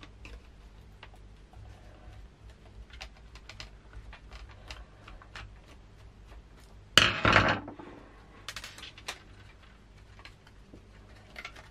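Small clicks and scrapes of a screwdriver working a screw out of a plastic circuit-board carrier, with one louder, brief clatter about seven seconds in.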